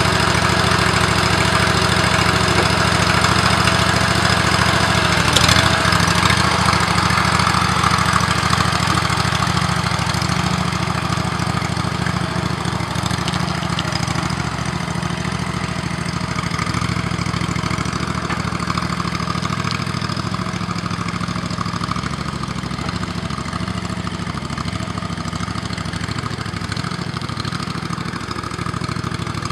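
A 25-hp Briggs & Stratton engine on a single-axle hydraulic-drive tractor runs steadily while the tractor pulls two trailers. The engine slowly fades as the rig moves away.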